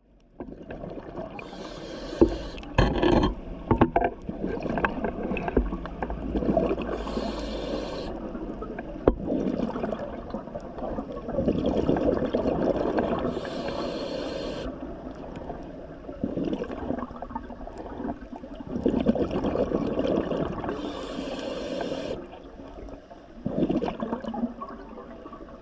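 A diver's scuba regulator heard underwater: four hissing inhalations about every six to seven seconds, alternating with bubbling exhalations.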